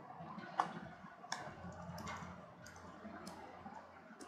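Faint clicks, about six of them at fairly even spacing, roughly one every two-thirds of a second, over low background noise.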